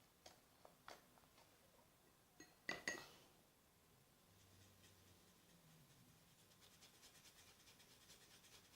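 Faint clinks and taps of small containers and utensils being handled while colouring slime: a few light ticks in the first second, sharper clinks around three seconds in, then a faint rapid clicking in the second half.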